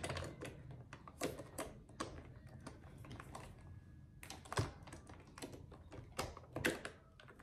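Irregular light clicks and taps of makeup products being handled, small cases and tubes knocking against each other, with a few sharper knocks among them.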